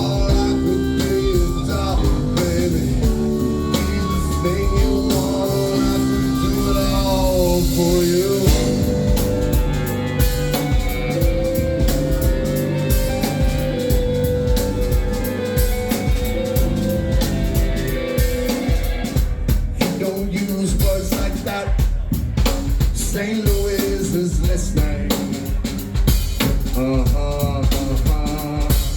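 A mostly instrumental passage of an alternative rock song, with drums, bass and sustained pitched tones. The texture changes about eight seconds in, and the drumming turns busier and more clipped in the second half.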